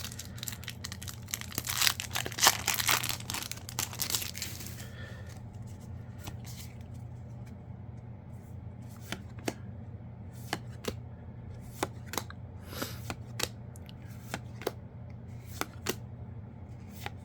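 A Yu-Gi-Oh booster pack wrapper being torn open and crinkled for about the first five seconds. After that come scattered light clicks and snaps as the trading cards are handled and flipped through one by one.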